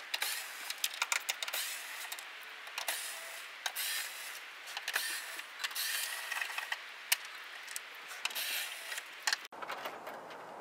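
Small cordless power screwdriver running in several short spurts, backing T25 Torx screws out of a plastic tailgate liner, with sharp clicks from the bit and screws between runs.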